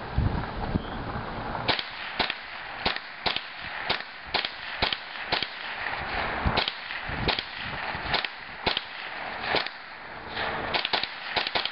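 Ruger 10/22 .22 rimfire semi-automatic rifle fired in quick succession through a 25-round magazine. Sharp cracks come about two a second from about two seconds in and quicken near the end.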